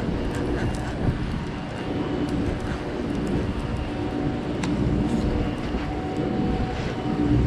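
Fishing party boat's engine running with a steady low drone, with a few faint clicks over it.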